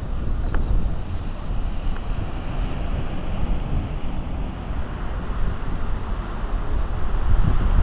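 Wind buffeting the microphone with a heavy, uneven rumble, with ocean surf washing behind it.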